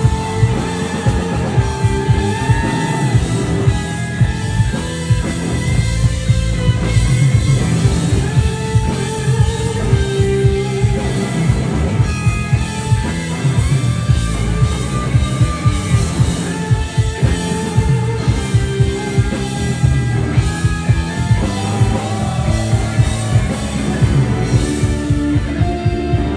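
Live rock band playing: electric guitars over a steady drum beat and bass, with a wavering melodic line that may be vocals or lead guitar.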